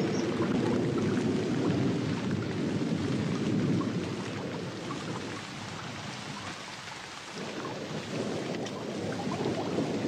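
Rain falling steadily on swamp water, with thunder rumbling through the first few seconds, easing around the middle and building again near the end.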